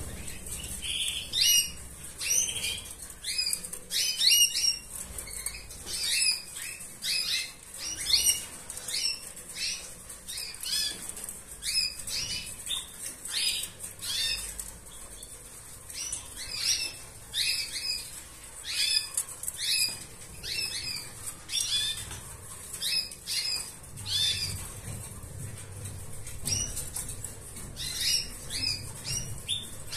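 Arlequim Portuguese canary chirping: a long run of short, high notes that drop in pitch, about one or two a second, in irregular runs.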